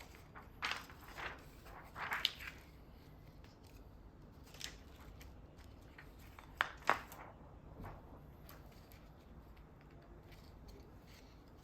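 Short, scattered plastic clicks and scrapes from keyboard parts being handled, with a close pair of sharper ones about seven seconds in.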